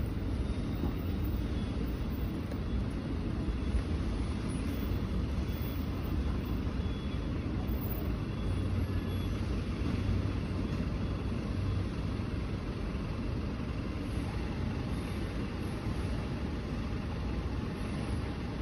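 Steady low rumble of street background noise, with no distinct events.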